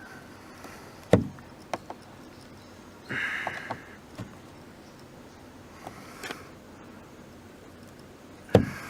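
Thin steel ruler prying at the plastic lens of a car's dome light: sharp plastic clicks and knocks, two of them loud, about a second in and near the end, with a short scrape about three seconds in.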